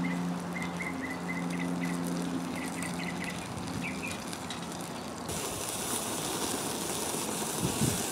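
Hamburger patty sizzling over charcoal on a grill grate, with small birds chirping and a steady low hum in the first half. About five seconds in the sizzle turns brighter and hissier, and a spatula knocks on the grate near the end.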